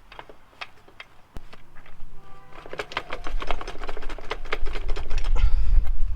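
Rapid metallic tapping and knocking, growing louder after about two seconds, with a brief ringing tone: hammer blows on a stuck motorcycle rear wheel spindle to drive it out. A low rumble of wind on the microphone comes in near the middle.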